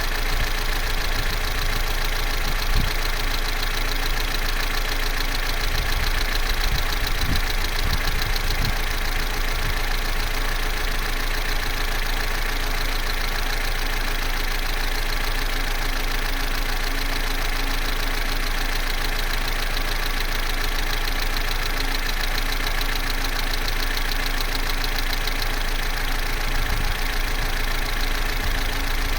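Corsa C's 1.4-litre Z14XEP four-cylinder petrol engine idling steadily, with a fast, even ticking running through the idle.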